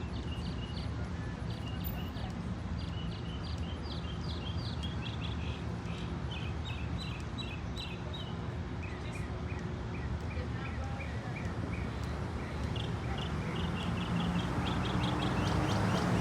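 Songbirds chirping in repeated runs of quick, short high notes, over a steady low background rumble that swells near the end.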